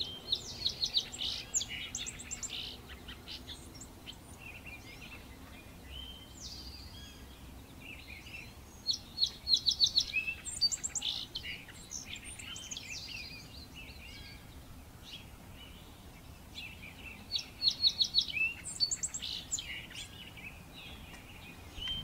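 Backyard songbirds singing, among them eastern towhees: three bouts of quick trilled phrases about eight seconds apart, with fainter calls between them.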